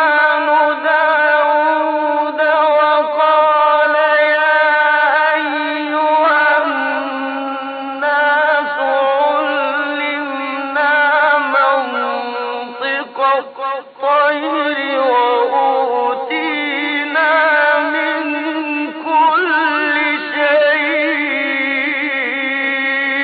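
A man's solo voice reciting the Quran in melodic tajweed style, with long held notes that waver and ornament in pitch.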